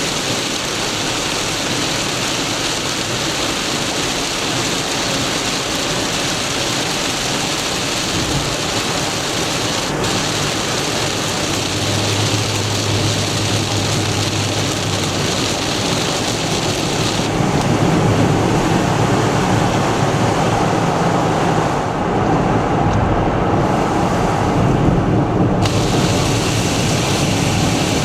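Torrential rain on a moving car: a steady, loud hiss of rain and road spray with the car's running and tyre noise underneath. The high hiss dulls for a few seconds near the end.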